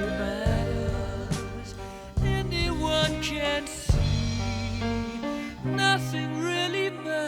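Background music: sustained chords with a gliding lead melody, and a drum hit about two seconds in and another about four seconds in.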